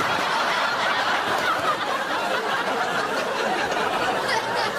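Audience laughter: many people laughing together in a steady, loud wash.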